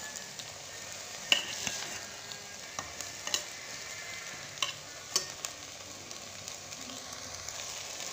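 Perforated metal spatula stirring rice, peas and spices in a pressure cooker, scraping and knocking against the pot with several sharp clinks, over a low steady sizzle from the cooker's contents.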